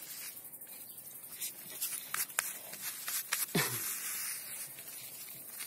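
Hand patting artificial turf and puppies scuffling around it: scattered light taps and scrapes, with a short sound falling in pitch about halfway through.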